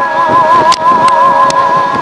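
Background music of several sustained notes that waver slowly in pitch, over a rough noisy bed, with a few faint clicks.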